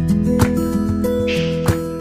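Background music: held melodic notes with sharp percussive hits every second or so and a brief shimmer of noise in the middle.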